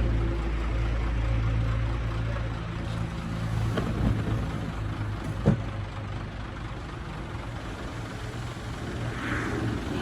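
Diesel engine of heavy earthmoving machinery running steadily, easing off about four seconds in. A single sharp knock comes about five and a half seconds in.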